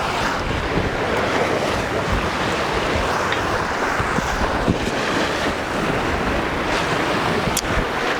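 Wind buffeting the microphone over the steady rush of sea water along a sailing yacht's hull while under sail.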